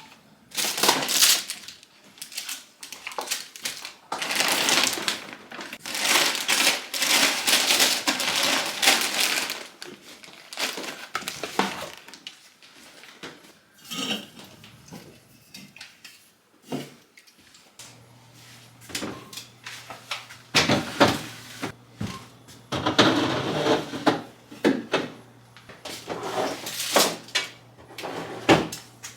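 Kitchen tidying and putting groceries away: packaging and bags rustling, with items and dishes knocking and clattering on counters and shelves. A faint steady low hum comes in a little past halfway.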